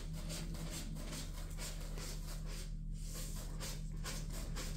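Cat licking a lickable treat from a squeeze tube: quick, wet lapping ticks, about four a second.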